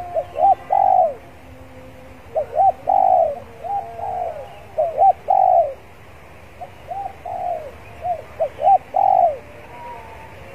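Spotted dove cooing: about six phrases, each two or three short notes followed by a longer coo, repeated every second or two.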